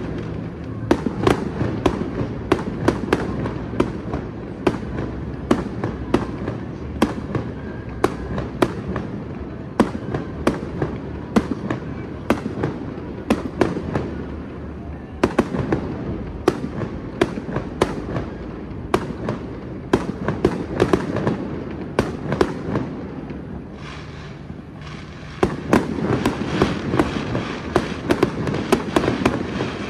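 A fireworks display going off: a rapid, irregular string of sharp bangs and crackles. It eases for a moment about three-quarters of the way through, then comes back thicker near the end.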